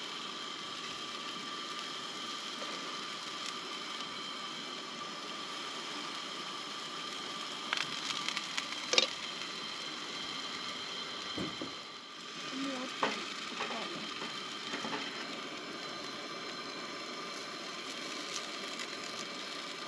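Small pancakes frying in hot oil in a frying pan on a portable gas camp stove: a steady sizzle, with a sharp knock about nine seconds in and a few scrapes of the spatula later on.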